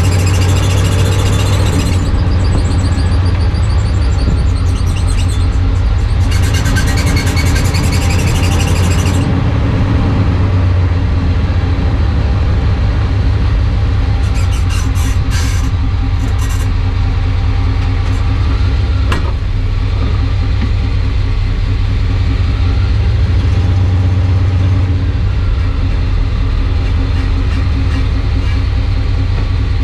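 A 1995 Chevrolet Suburban's drivetrain running steadily, with the abnormal noise from the propeller shaft that the uploader suspects comes from a worn U-joint. One sharp click sounds about two-thirds of the way through.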